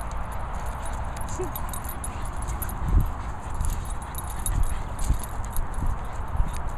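Dogs romping and wrestling on grass: irregular soft thuds of paws and bodies over a steady background rush.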